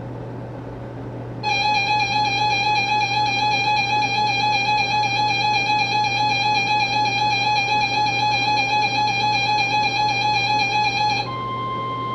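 Emergency alert tones over a steady hum. A loud warbling alert tone starts about a second and a half in and holds for about ten seconds. Near the end it switches to a steady, slightly higher single tone, like a weather radio's warning alarm tone.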